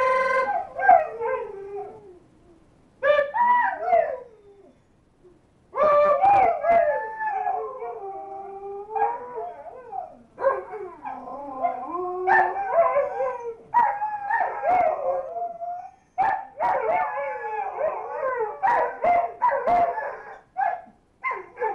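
Two Alaskan malamutes howling together: long wavering howls that slide up and down in pitch, coming in bouts with short pauses. From about ten seconds in, the two voices overlap, and shorter, choppier yips come toward the end.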